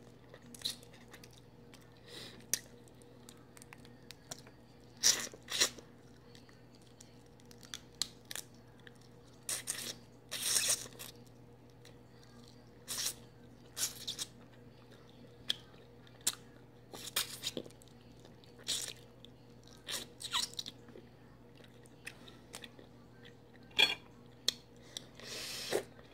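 Close-up eating sounds: cooked Dungeness crab shell being cracked and picked apart, and crab meat chewed. Irregular short cracks and crunches, with a faint steady hum underneath.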